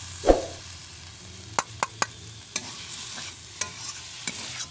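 Metal spoon scraping and knocking against a kadhai and steel plate as cooked dry cabbage sabzi is served out: a heavy thump about a third of a second in, then a string of sharp clicks.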